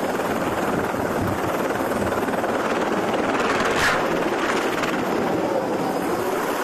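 Small helicopter running close by, its rotor chopping in a fast steady beat over the engine noise.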